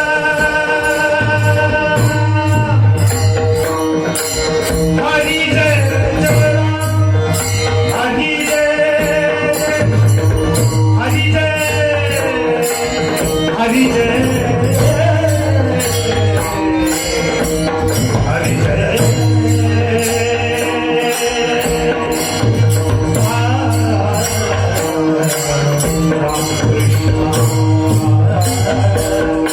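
Marathi varkari devotional singing (kirtan abhang) in a melismatic voice with gliding ornaments. It is accompanied by a sustained drone, a pakhwaj drum and a steady, even beat of small hand cymbals.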